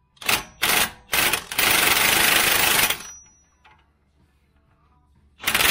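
Cordless impact wrench hammering on a suspension bolt at the steering knuckle: three short blips, then a steady run of about a second and a half. It stops, and another burst starts near the end.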